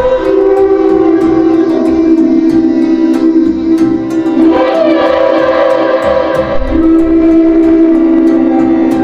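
Music: long held notes on string-like instruments, the notes changing about halfway through and again a little later.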